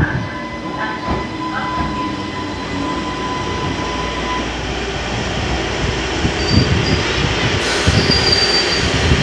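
A Vivarail Class 230 train pulling in alongside the platform and slowing to a stop. A steady whine fades out about four seconds in, and short high squeals come near the end as it stops.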